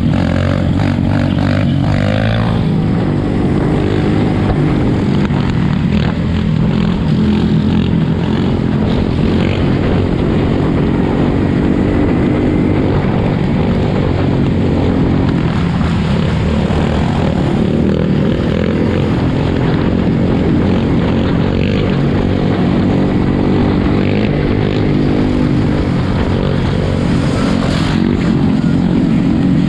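Several four-wheeler and dirt-bike engines running together, a steady, dense engine noise that changes little in pitch.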